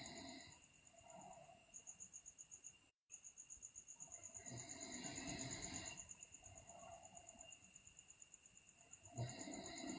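A sleeping girl's slow breathing with soft snores, one breath about every five seconds: near the start, around the middle and near the end.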